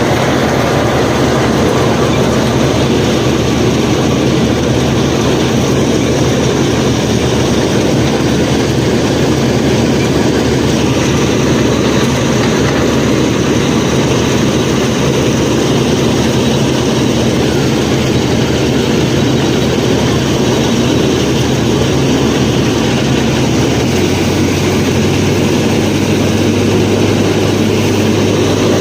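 Miniature tractor and thresher machinery running steadily: a low motor hum under dense mechanical noise. The hum shifts to a new steady pitch about 24 seconds in.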